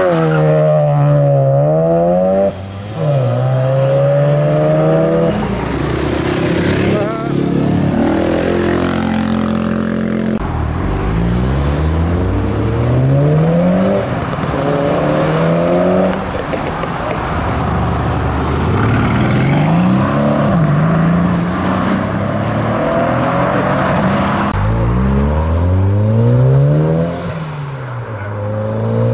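Modified tuner cars accelerating away one after another, their engines revving hard. The pitch climbs over a second or two and drops back at each gear change.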